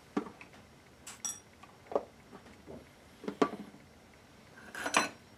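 Small metal jewelry pieces and bench tools clinking and tapping as they are picked up and set down on a steel bench plate: five or six separate knocks and clinks, two of them with a short bright metallic ring.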